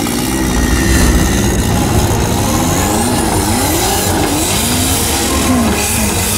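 Off-road race buggy's engine revving hard, the pitch climbing and dropping again and again as it fights its way up a muddy bank.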